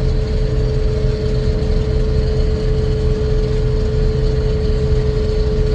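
Combine harvester running steadily while cutting soybeans: a low engine rumble with a steady whine held over it.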